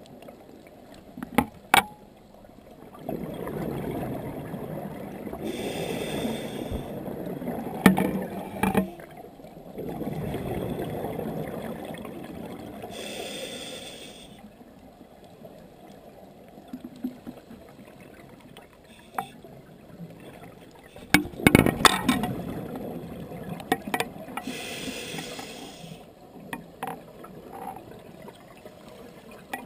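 Scuba diver's regulator heard through an underwater camera housing: a hiss on each inhale and a long bubbling rush on each exhale. Several sharp clicks and knocks come in between, the loudest about a fifth of the way in and again about two-thirds of the way through.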